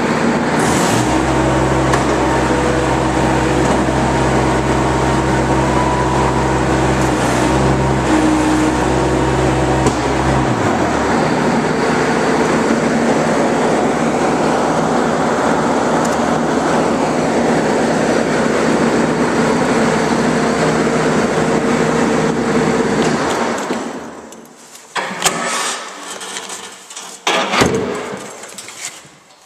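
Bobcat 763 skid steer's 46 hp non-turbo Kubota diesel engine running, its sound changing about ten seconds in. The engine stops a little over twenty seconds in, followed by a few metallic clanks.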